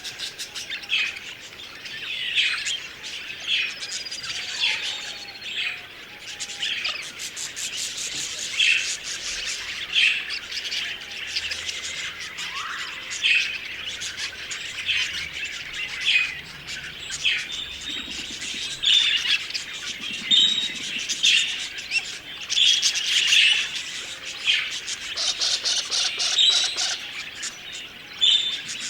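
Budgerigars chirping and chattering, a dense run of short, overlapping warbled calls with no pause.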